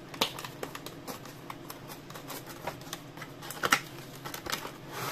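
Cardboard Matchbox 5-pack box being pulled open by hand, with irregular crackling and clicking of the card flaps and the clear plastic blister tray inside. There are sharper clicks about a quarter second in and again near the end.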